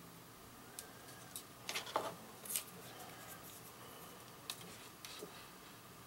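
Faint, scattered clicks and crackles from soldering a bullet connector, with a tight cluster about two seconds in and a few more near the end.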